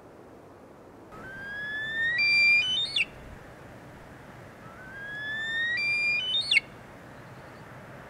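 Male Caucasian snowcock singing two songs. Each is a long whistle rising slowly in pitch for about a second, then stepping up to a higher held note and ending in a short, higher flourish.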